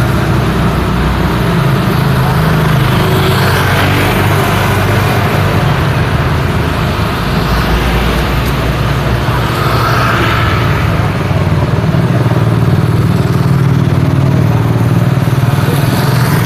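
Road traffic: a steady low engine rumble, with vehicles passing close by about four seconds in and again about ten seconds in.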